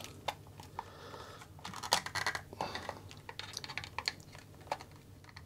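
Metal prying tool clicking and scraping in the glued seam of a plastic power-supply case as the case is levered apart. Irregular sharp clicks, with a bunch of louder ones about two seconds in.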